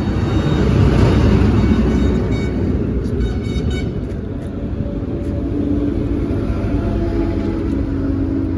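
Diesel rushing from a pump nozzle into a truck's fuel tank: a loud, steady, noisy rush over a low rumble.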